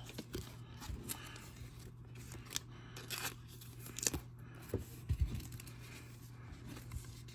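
Trading cards being handled: cards sliding and flicking against one another, with soft rustles and light card clicks, a few sharper taps around the middle. A faint low hum runs underneath.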